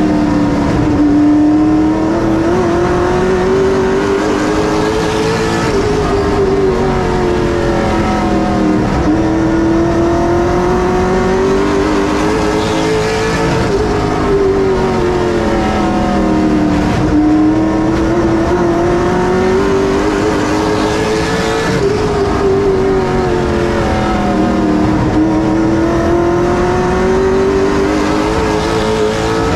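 Late model stock car's V8 engine running at racing speed without a break, its pitch rising down each straightaway and dropping as it lifts for each turn, in a cycle of about eight seconds.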